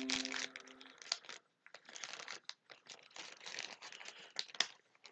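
Packaging crinkling and rustling in a run of irregular crackles as it is carefully opened by hand. A ringing chord fades out in the first second.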